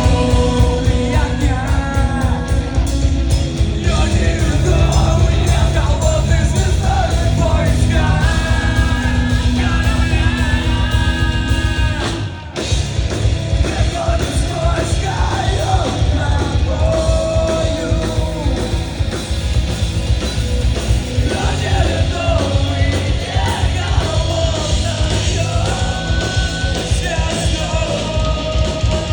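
Rock band playing live, with shouted singing over the music. The sound drops out briefly about twelve seconds in and then comes straight back.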